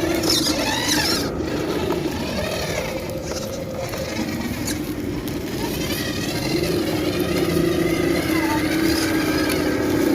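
Electric motor and gearbox of a scale RC crawler truck whining as it drives. The pitch wavers with the throttle and the whine steadies and grows stronger from about six seconds in.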